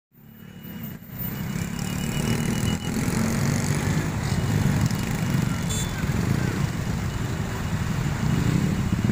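Many small motor-scooter and motorcycle engines running and pulling away together as a crowd of riders crosses the railway tracks, a dense steady rumble that swells up over the first two seconds.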